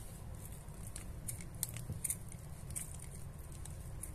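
Kitchen scissors snipping through the butcher's twine tied round a roast chicken's legs: several faint, sharp snips, over a low steady hum.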